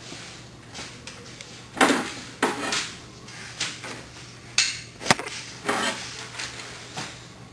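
Irregular knocks, clunks and clatter of sound gear being handled and taken down, about seven separate hits with a sharp click in the middle, over a low room hum.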